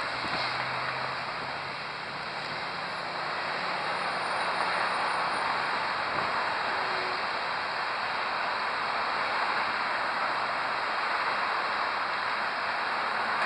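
Steady road traffic noise from cars passing on a multi-lane road, mostly tyre hiss, growing louder about four seconds in.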